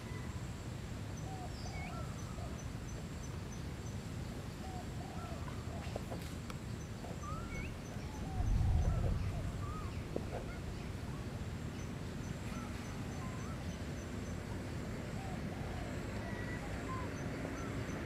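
Short chirping animal calls, scattered all through, over a steady low rumble. A run of rapid high pips recurs every few seconds, and a brief low thump comes about halfway.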